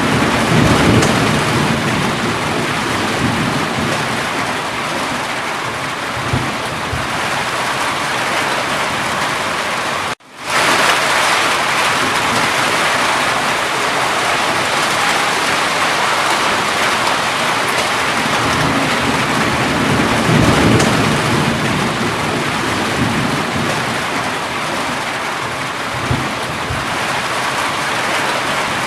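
Steady heavy rain falling, with low rumbles of distant thunder swelling twice, near the start and about twenty seconds in. The sound cuts out for a split second about ten seconds in, then the rain resumes.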